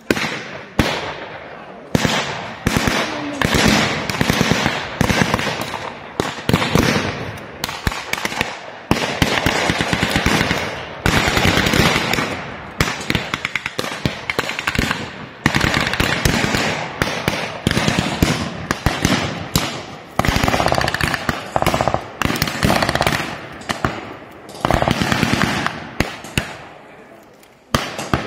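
Staged firefight with blank-firing rifles and automatic weapons: irregular sharp shots, some single and some in rapid bursts, with short lulls between volleys.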